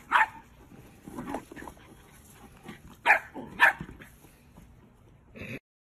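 Puppy barking: a few short, high yips, one just at the start and two close together about three seconds in. The sound cuts off suddenly near the end.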